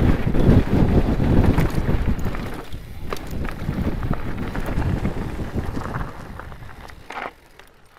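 Wind buffeting the microphone over the crunch and rattle of a Specialized Turbo Levo e-mountain bike rolling down a gravel track. It fades as the bike slows and drops away sharply about seven seconds in.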